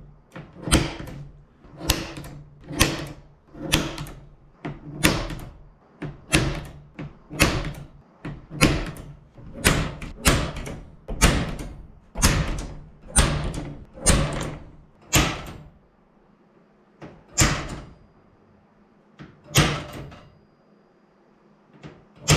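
Center punch striking an aluminium spar cap strip, marking the hole positions for pre-drilling. It gives a sharp metallic tap with a short ring about every two-thirds of a second for some fifteen seconds, then two more spaced-out taps.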